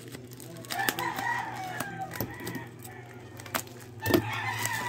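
A chicken calls twice, each call drawn out for a second or more and falling away at the end, over the crinkle and crackle of plastic bubble wrap being handled.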